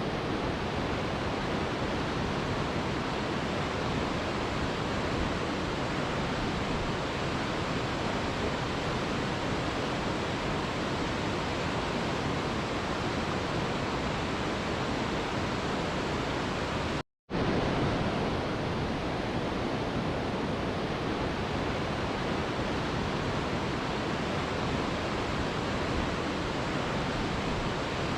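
Waterfall white noise: a steady, even rush of falling water. It cuts out abruptly for a split second about 17 seconds in, then resumes at the same level.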